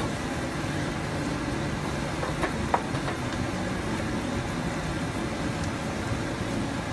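Chicken and masala sauce boiling in a pan, a steady low bubbling rumble, with a few light clicks a little over two seconds in.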